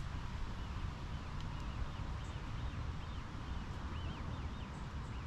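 Wind on the microphone, a steady low rumble outdoors. A bird chirps over it in a run of short, high, arched notes from about a second in.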